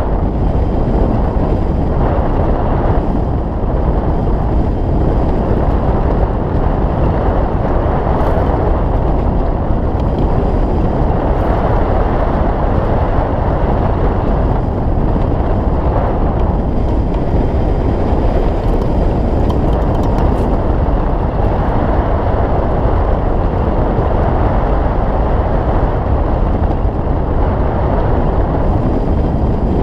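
Steady rush of airflow over a hang glider in flight, buffeting the wing-mounted camera's microphone.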